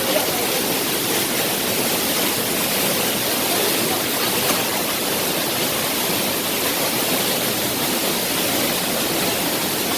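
Waterfall rushing: a steady, even roar of falling water, unchanging throughout.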